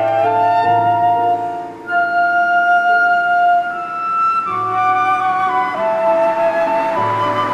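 A flute playing a melody in long held notes over a lower sustained accompaniment.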